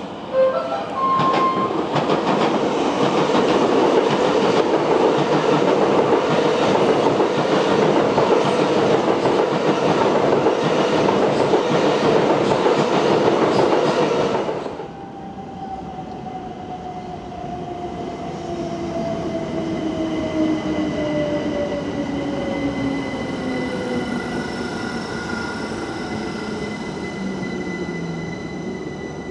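Gatwick Express Class 387 electric train running past at speed: a loud steady rush of wheels on rail that cuts off abruptly after about fourteen seconds. Then an electric train's motor whine falls steadily in pitch, with steady high electrical tones above it.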